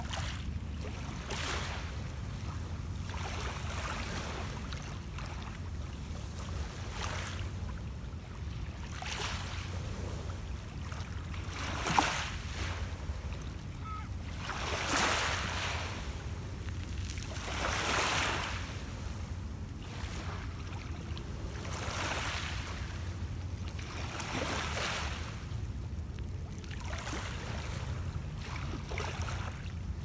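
Small lake waves washing onto a pebble beach, each wash a soft hiss that swells and fades every couple of seconds, over a steady low rumble. A single sharp click about twelve seconds in is the loudest moment.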